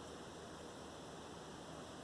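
Steady background hiss of room tone with no distinct sounds: a pause in speech.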